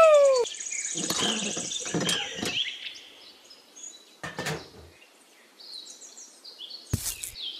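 Birds chirping and twittering, opening with a loud falling whistled note. A few short rustling, scraping sounds come through, likely from a miniature plastic hand pump being handled and set down on sand, with a sharp click near the end.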